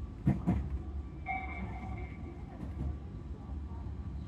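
Tobu Urban Park Line electric train running, heard inside the car: a steady low rumble, with two quick knocks just after the start and a brief steady tone lasting about a second starting about a second in.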